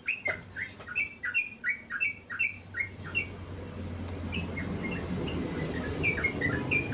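A small bird chirping in quick short notes, about four a second, then more sparsely after about three seconds. A low rumble grows underneath from about halfway.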